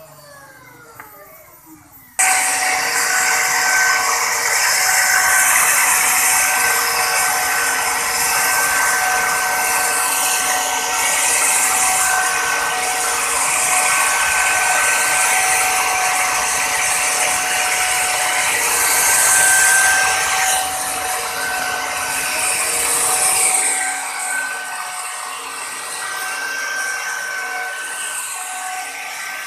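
A Crown CT11001 electric router winds down, its whine falling. About two seconds in it starts abruptly and runs with a steady high whine while its bit cuts a carved pattern into a wooden bed panel.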